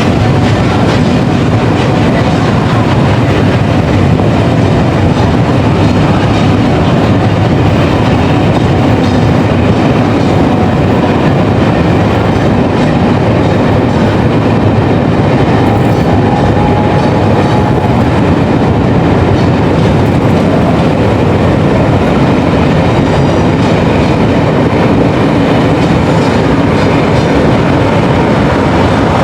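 A train rolling past on the rails: a loud, steady rumble of wheels and carriages with some clickety-clack over the track joints.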